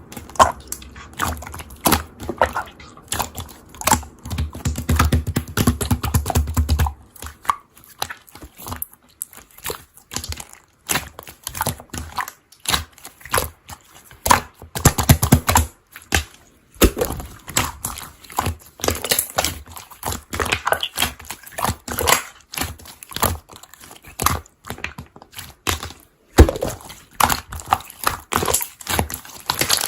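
Slime being worked by hand: dense, irregular sticky clicks, crackles and pops as it is pressed and pulled, in clusters with short pauses between.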